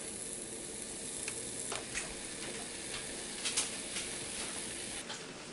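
Bacon strips sizzling in a cast iron skillet, a steady hiss with a few light ticks as more strips are laid into the pan.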